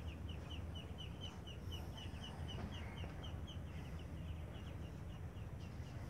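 An animal chirping in a rapid, even series of short high chirps, about four a second, growing fainter in the second half, over a low steady rumble.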